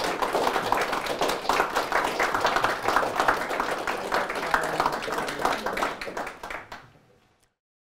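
Audience applauding, dense clapping that fades away near the end and then cuts off.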